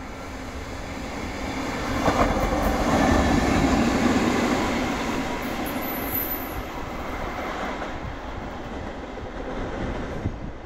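An EF65 DC electric locomotive running light at speed, with no train behind it, passing on the rails. It grows loud about two seconds in, peaks over the next couple of seconds, then fades as it runs away.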